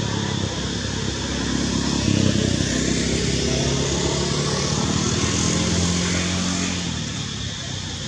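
A motor vehicle's engine passing by, its steady drone growing louder about two seconds in and fading away near the end.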